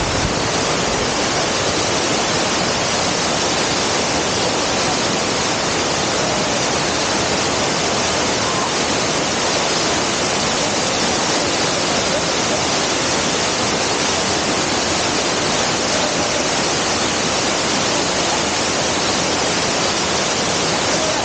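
Waterfall rushing loudly and steadily, in heavy flow after rain.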